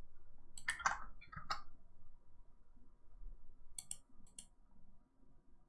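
Faint computer mouse clicks: a few soft clicks in the first second and a half, then two sharp clicks about half a second apart later on.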